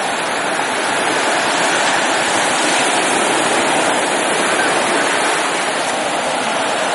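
Steady rush of running water, an even hiss that holds without breaks or swells.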